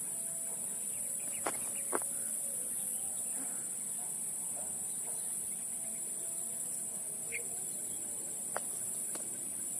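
Steady high-pitched buzzing of an insect chorus, with a few faint ticks.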